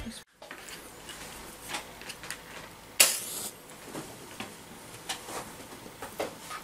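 A match struck on its box, catching with a sharp scrape and brief flare about three seconds in. Light clicks and taps come from the metal fuel tray and fuel tablets being handled.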